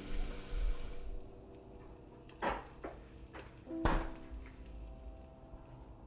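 Kitchen sounds: a pan's sizzle fades out in the first second, then a few knocks and clinks of pots and utensils, the loudest about four seconds in, over soft sustained tones.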